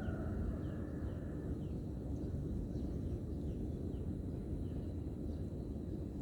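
Outdoor rural ambience: a steady low rumble with a run of short, high, falling bird chirps, a couple a second.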